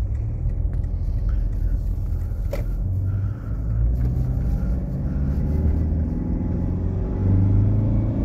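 Toyota Prado's 1KD-FTV four-cylinder turbo-diesel and road noise heard inside the cabin while driving; the engine note grows louder about seven seconds in as it pulls harder.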